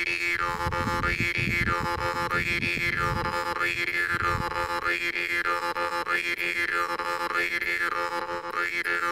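Background electronic music: a held synthesizer drone with a tone that swoops up and back down about once a second. A low rumble underneath fades out about halfway through.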